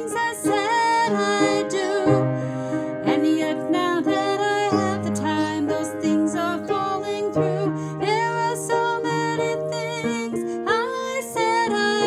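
A woman singing a slow melody with vibrato over an instrumental backing of held chords, the bass note changing every two to three seconds.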